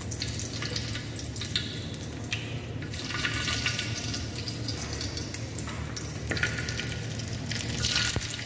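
Hot oil in a frying pan sizzling softly around broken dried red chillies, with scattered small crackles and pops, as the oil heats for a rasam tempering. The sizzle swells about three seconds in and again near the end.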